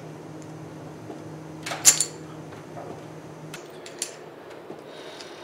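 Poker chips clattering onto the table: one loud clatter about two seconds in, then a few faint clicks, over a steady low hum that stops partway through.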